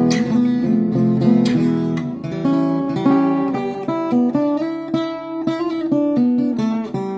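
1955 Harmony Broadway H954 acoustic archtop guitar being played, with two hard strummed chords near the start followed by a run of changing chords and single picked notes.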